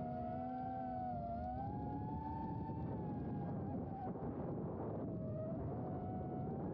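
Small FPV quadcopter's brushless motors and propellers whining in flight, the pitch wavering up and down with throttle over a steady rush of wind and prop wash.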